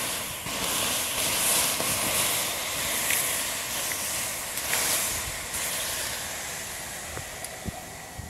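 Water poured onto hot charcoal embers to douse them, hissing as it flashes to steam, with a few sharp pops. The hiss starts suddenly and slowly dies away as the coals are soaked.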